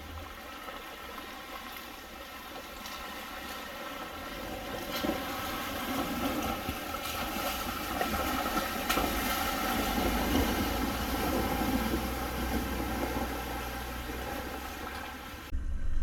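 A vehicle's engine running as it drives through a shallow creek, with water splashing, growing steadily louder as it comes closer. The sound changes abruptly near the end.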